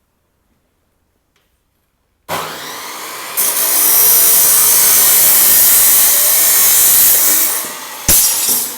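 A power tool starts up after about two seconds of silence, then cuts into a steel strip with a loud, harsh hiss for about four seconds. It eases off, and a short final burst of cutting follows near the end.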